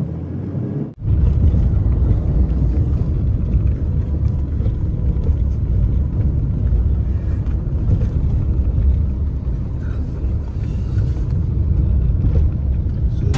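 Steady low road and engine rumble of a moving car, heard from inside the cabin. It drops out briefly about a second in, then comes back louder.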